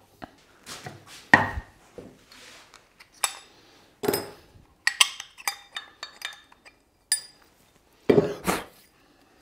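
A metal bench plane being handled on a wooden workbench: several separate knocks as it is picked up and set down, and metallic clinks with a short ring as its blade is taken out for sharpening.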